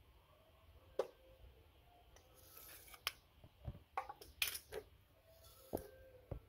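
Faint scattered clicks and rustles from a litter of kittens shifting and nursing against their mother cat on a tile floor, with a few brief faint squeaks.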